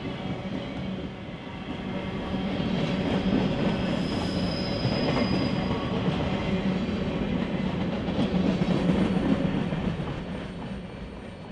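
Cars of a mixed freight train, boxcars and gondolas, rolling past close by: a steady rumble and clatter of steel wheels on rail, with a brief high wheel squeal about four seconds in. The sound fades near the end as the train moves away.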